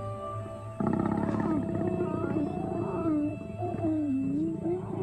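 Lions growling and snarling during mating. The growling starts suddenly about a second in and wavers up and down in pitch, over soft background music.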